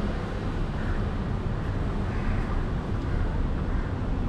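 Steady street traffic noise, a low rumble with no distinct events.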